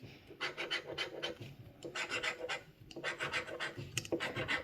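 Scratch-off lottery ticket being scratched: quick rasping back-and-forth strokes in three runs with short pauses between them.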